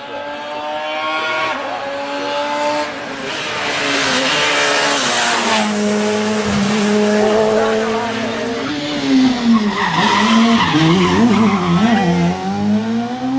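Rally car engine at full throttle on a stage, loud, its pitch climbing and then holding. Later the revs swing rapidly up and down through lifts and gear changes, with tyre and road noise loudest about halfway through and again in the second half.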